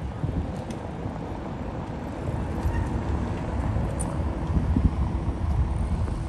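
Outdoor street background: a steady low rumble like passing road traffic, a little louder after about two seconds.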